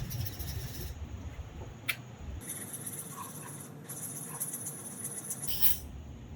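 Steel carving chisel rubbed back and forth on a sharpening stone, with a scratchy scraping and a couple of short sharp clicks.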